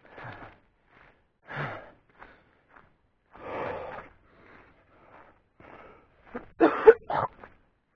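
A man breathing hard from climbing a steep hill: heavy, wheezing breaths every second or two, some exhales voiced with a low falling groan, and a louder cluster of gasps about seven seconds in.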